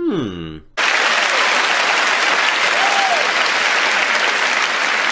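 Large arena audience applauding, starting abruptly about a second in and holding steady, after a short sound falling in pitch.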